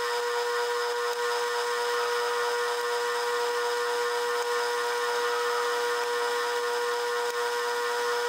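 A 12-inch Atlas metal lathe running with a steady, even whine as its chuck spins a small workpiece.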